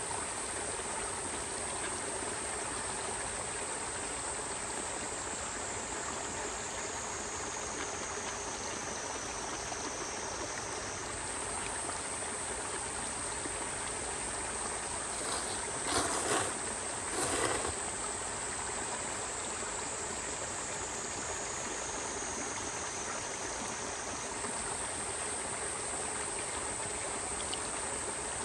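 Steady rush of a flowing stream, with a steady high whine above it that dips lower twice. Two brief louder noises come about two-thirds of the way through.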